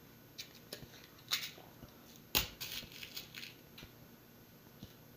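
Air rifle being handled and readied to shoot: a few light clicks, then a sharper clack a little over two seconds in followed by brief light rattling, and a couple more faint clicks near the end.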